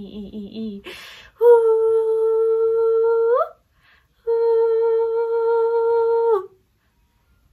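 A woman's voice toning in light-language practice: the last of a quick repeated chanted syllable, an in-breath, then two long steady hummed notes of about two seconds each at the same fairly high pitch, the first sliding up at its end.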